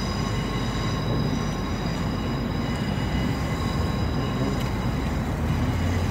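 Train running past: a steady rumble with several steady high-pitched tones ringing above it.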